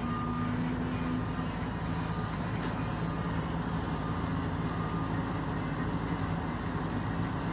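Vehicle engine idling with a steady low hum, heard from inside a vehicle cab.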